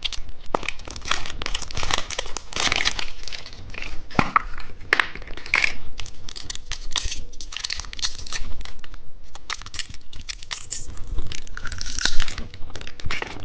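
Candy wrapper being torn open and crinkled by hand as a surprise candy egg is unwrapped, with irregular crackling and rustling throughout.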